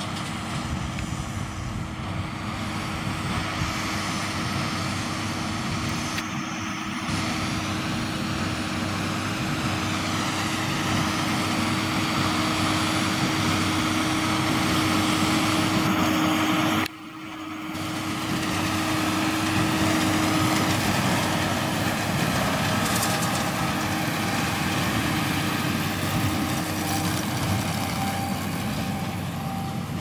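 John Deere 7530 tractor running under load, pulling a Massey Ferguson 2270 large square baler as it picks up and bales straw, with a steady drone from the machinery. It grows louder as the rig passes close about halfway through, drops out abruptly for a moment about 17 seconds in, and comes straight back.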